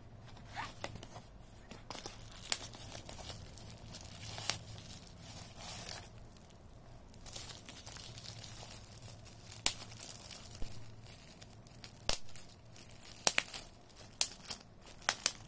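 Bubble wrap around a mini wireless keyboard crinkling and crackling as it is handled, with irregular sharp crackles that come more often near the end.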